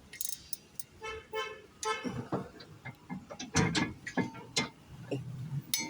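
Sharp metallic clicks and knocks of hand tools on the brake disc hub while its bolts are tightened, a cluster of louder knocks a little past the middle, with a few short pitched notes a second or two in.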